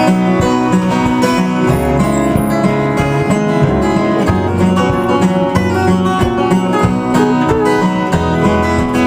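Fingerpicked acoustic string instrument playing an instrumental passage of a folk ballad, plucked melody notes over a steadily stepping bass line, with no singing.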